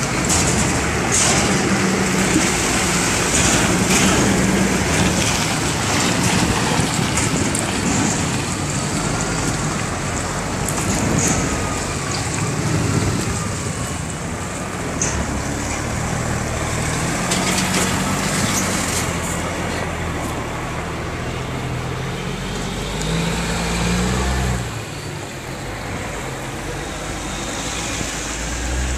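Heavy truck's diesel engine running at low speed while maneuvering a double flatbed trailer rig, its pitch rising and falling. A few short high-pitched hisses or squeaks come in the first half, and the sound drops in level near the end.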